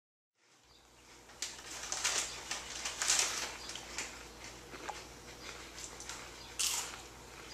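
A foil snack bag crinkling and rustling as a hand digs into it for chips, in several bursts, the loudest about three seconds in and again near the end.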